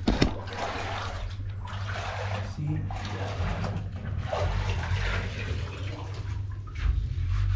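Wet sponge rubbed in irregular strokes over freshly floated cement render, a rough, watery swishing as the surface is smoothed. A steady low hum runs underneath, with a sharp knock or two at the very start.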